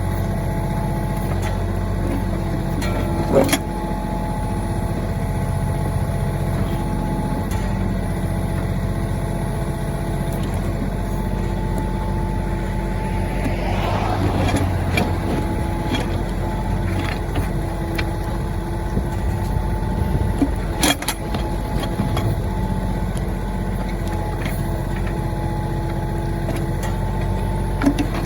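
Mahindra 1626 tractor's diesel engine running steadily while it works the backhoe, with a few sharp knocks about three seconds in, around two-thirds of the way through and near the end.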